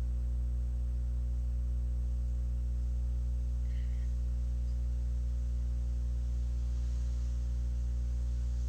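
Steady low electrical hum with evenly spaced overtones, unchanging throughout.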